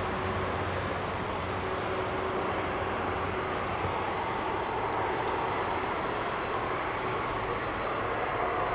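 Boeing 747-8F freighter's four GEnx jet engines running: a steady rush with a faint whine held through, growing slightly louder near the end.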